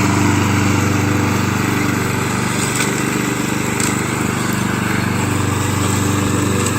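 A small engine running at a steady speed.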